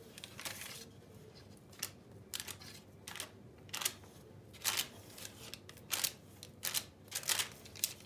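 Baking paper rustling and crinkling in short, irregular bursts, a little more than one a second, as fingertips press dimples into the edge of pide dough lying on it.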